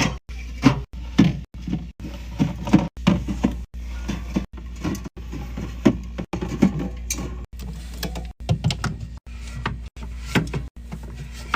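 Items being handled and set into a mini fridge: a quick series of short knocks and clatters with rustling between them, in short clips that cut off abruptly about once a second, over a steady low hum.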